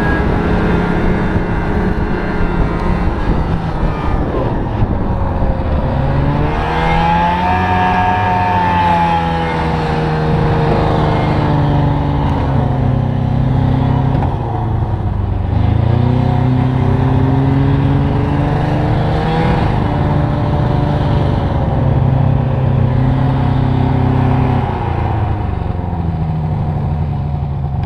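Snowmobile engine running under load while towing a passenger sled with riders, its pitch rising and falling as the revs change, with a marked dip about fifteen seconds in before it picks up again. The riders felt it struggling a little with the weight.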